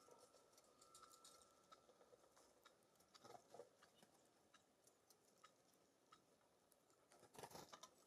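Very faint ticks and taps of small songbirds pecking seed and moving about on the feeders, with a brief louder flurry of clicks near the end.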